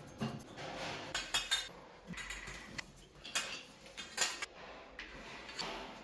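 Small hard metal objects clinking and clattering as they are handled: a string of separate light strikes, a few of them ringing briefly.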